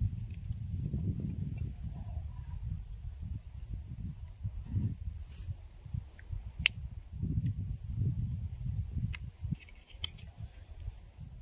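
Insects trilling steadily at a high pitch, over a gusty low rumble of wind on the microphone, with a few light clicks of a metal spoon against a pan.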